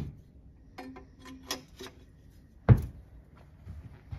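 Metal clinks and knocks as removed motorcycle exhaust pipes are handled, with a heavy thump right at the start and a louder one a little past halfway.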